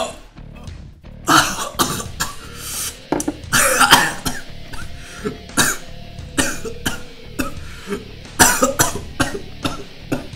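A man coughing in repeated harsh fits, some coughs in quick pairs, from gulping strong, spicy ginger juice that burns his throat, with music playing underneath.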